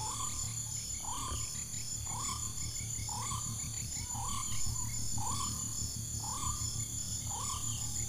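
White-breasted waterhen calling: a short hooked note repeated about once a second, nine times, over a low steady background hum.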